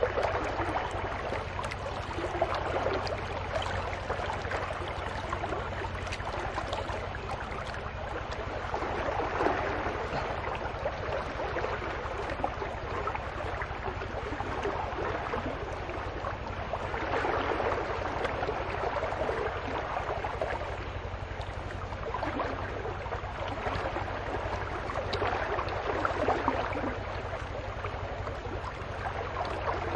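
Water sloshing and swishing in a wooden gold pan as it is swirled in shallow muddy water, swelling and easing every few seconds, over a steady low rumble.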